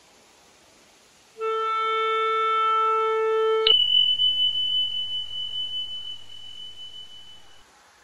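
Editing sound effect for a subscribe-button animation: a held electronic tone for about two seconds, then a sharp click and a single high bell-like ding that rings and fades away over about four seconds.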